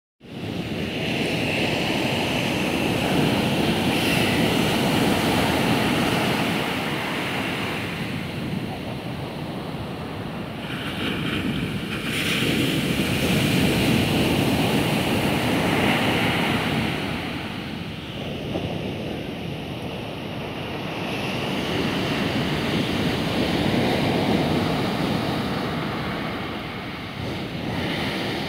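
Ocean surf breaking and washing up a sand beach: a continuous rushing that swells and eases in slow surges, roughly every nine or ten seconds.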